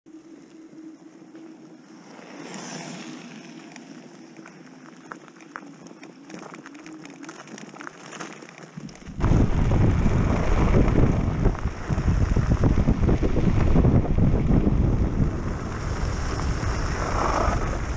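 Wind buffeting the microphone of a handlebar-mounted camera on an electric two-wheeler riding a gravel trail, mixed with tyre rumble. It is quieter with a faint steady hum at first, then suddenly becomes much louder about nine seconds in.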